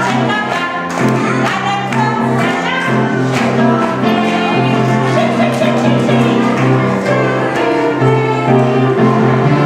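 A song with a steady beat and sustained bass notes, sung by a group of children's voices.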